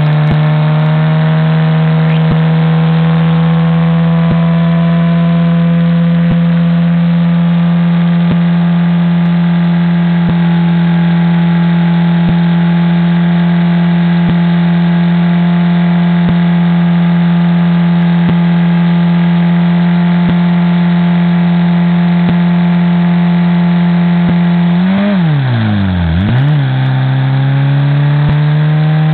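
Lada's engine held at high, steady revs during a burnout. Near the end the revs dip sharply and climb straight back up, then hold again.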